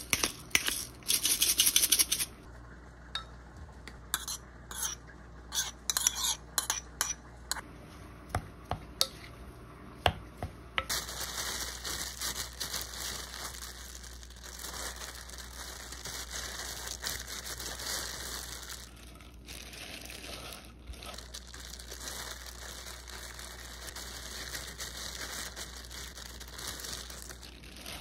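A wooden spoon stirs and scrapes mashed potato in a glass bowl, with scattered clicks. From about eleven seconds in, thin disposable plastic gloves crinkle steadily as gloved hands press and shape the potato mixture.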